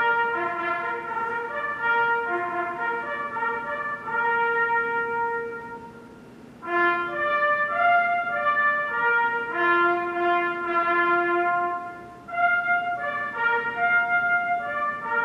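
A solo trumpet playing a slow bugle call in long held notes. The phrases break off briefly about six seconds in and again near the end.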